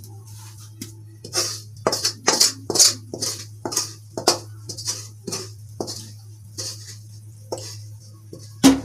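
Metal spatula scraping thick mysore pak mixture out of a metal kadhai into a metal tin: repeated short scrapes, about two a second, with one loud metal knock near the end. A steady low hum runs underneath.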